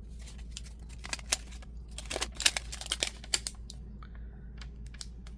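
Plastic toy packaging being handled: scattered short crinkles and light clicks, busiest in the first three seconds.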